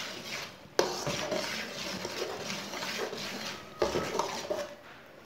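A slotted metal spatula scraping and stirring thick cooked dal and spinach around a metal karahi, clanking sharply against the pan about a second in and again near four seconds.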